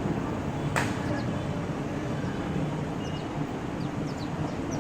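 Faint short chirps from small birds over a steady low rumbling background noise, with one sharp click just under a second in.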